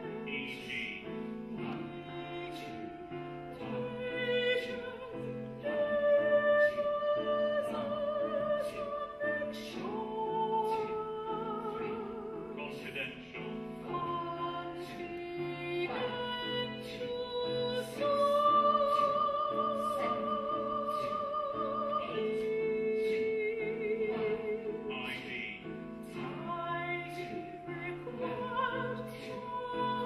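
Female operatic singing over classical accompaniment: long held notes with a wide vibrato, moving from note to note every second or two.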